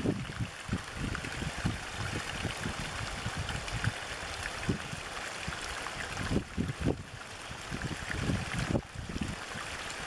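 Small stream of water pouring over a short drop into a shallow pool, a steady rushing splash with uneven low surges and gurgles.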